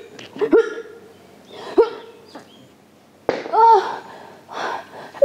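A woman's voice making about four short, strained, choked sounds, each starting with a sharp catch, spread a second or so apart.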